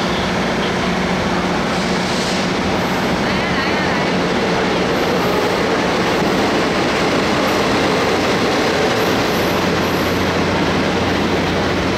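Taiwan Railway blue ordinary-class coaches of a parcel train rolling through an underground station platform, with steady wheel-on-rail noise and brief wheel squeals a few seconds in. Near the end a second train passes on the near track, adding a low hum.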